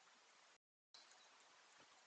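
Near silence: faint, even hiss from a trail camera's microphone, cut by a brief dead gap where one recording ends and the next begins.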